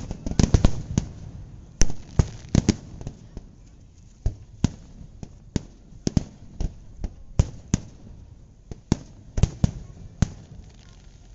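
Aerial fireworks shells bursting: a rapid cluster of sharp bangs in the first second, then single booms every half second to a second, irregularly spaced.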